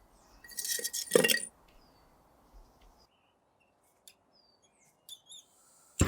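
A short burst of metallic clinking and scraping with a brief ringing tone, about half a second in, against faint bird chirps.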